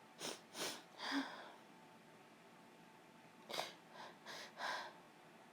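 A woman with a cold making short, sharp nasal sounds through a stuffed-up nose: two quick ones and a longer breathy one in the first second and a half, then after a pause a cluster of four, about a second and a half in all.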